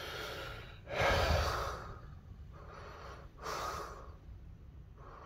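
A person breathing heavily close to the microphone, a breath every second or two with the strongest about a second in, over a faint low rumble from the 1979 Chrysler New Yorker's engine idling just after it has started.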